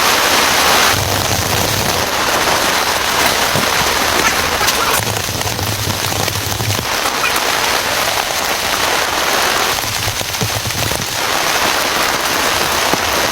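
Heavy rain pouring down steadily: a loud, dense hiss of drops hitting a surface.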